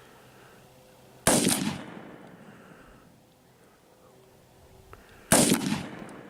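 Two AR-15 rifle shots, firing tracer rounds, about four seconds apart. Each sharp report trails off over about a second.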